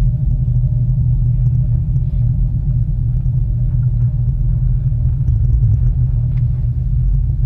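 Steady low rumble inside a ropeway gondola cabin travelling along its cable, with a faint steady hum above it.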